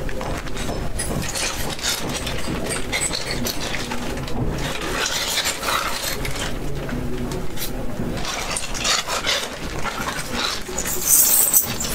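Rummaging with rustling and scattered small metallic clinks, then a louder jangle of handcuff chain near the end.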